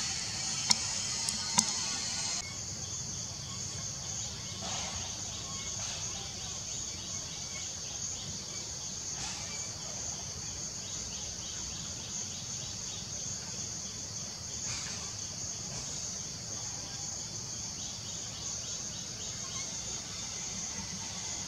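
Steady high-pitched insect chorus, like crickets or cicadas, over low background rumble, with two sharp clicks in the first two seconds.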